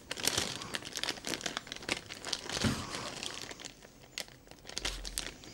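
Thin clear plastic bag crinkling and crackling irregularly as fingers pinch and work at its top edge to get it to close or open.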